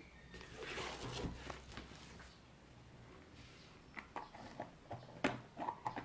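Rustling, then a quiet pause, then a run of sharp clicks and taps as a plastic food container is handled and its lid pressed on, the loudest click about five seconds in.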